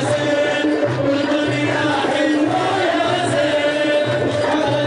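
Middle Eastern folk song played loud over a loudspeaker system: a voice singing over a steady, evenly repeating drum beat.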